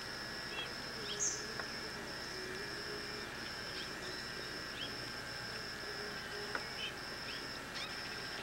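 Outdoor insect chorus: a high, pulsing trill that repeats about twice a second, with scattered short bird chirps over it.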